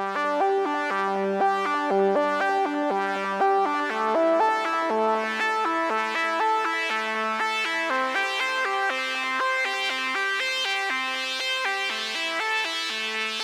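Software emulation of the Oberheim SEM analog synthesizer playing a quick, steady run of short pitched notes in a repeating sequenced pattern with a bright, keyboard-like tone, starting abruptly.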